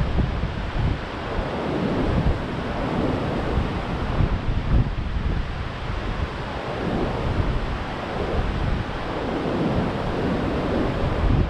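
Storm-driven Gulf surf breaking in rows on a sandy beach, a continuous wash of waves, with strong wind blowing across the microphone and adding a low rumble.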